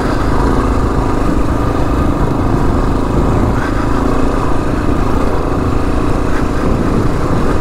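2022 Kawasaki KLR 650's single-cylinder engine running steadily through a Lexx slip-on exhaust as the bike is ridden along a dirt trail.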